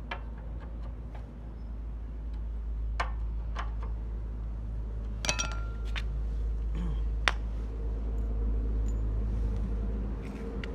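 Small petrol portable generator engine running at a steady speed, with its carburettor cleaned. Several sharp metallic clinks and taps sound over it.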